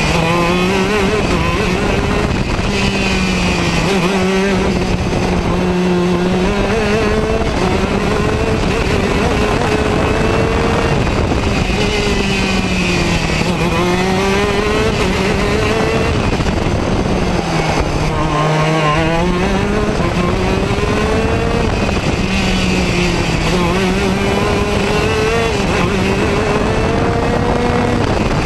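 Racing kart engine heard from on board at speed. Its revs climb steadily down the straights and drop sharply for the corners several times, with the deepest drop about two-thirds of the way through.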